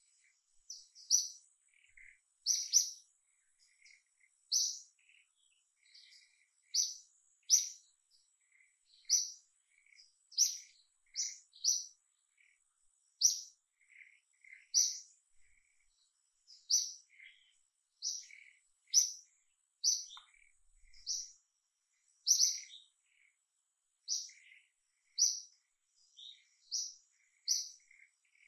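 A songbird calling with short, high chirps repeated about once a second, often in quick pairs.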